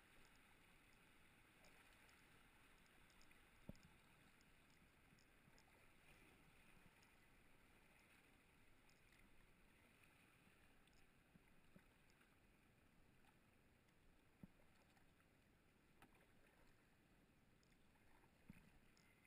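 Faint rush of river water around a canoe moving through shallow riffles, with a few soft knocks scattered through.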